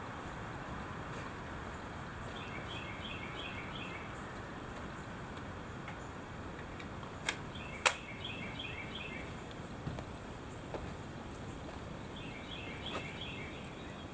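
Outdoor ambience with a songbird singing a short rapid phrase of repeated notes three times, about two, seven and twelve seconds in. Two sharp knocks just past halfway are the loudest sounds, followed by a few fainter taps.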